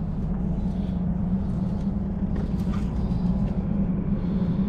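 Steady low hum of machinery from large ships lying at anchor, an even drone with one constant low tone, broken only by a few faint clicks.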